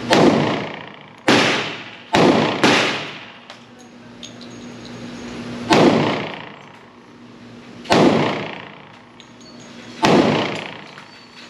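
Seven shots from a Glock 20 10mm pistol, fired singly at uneven intervals: four within about three seconds, then three more about two seconds apart. Each shot rings on for about a second in the echo of an indoor range, over a steady low hum.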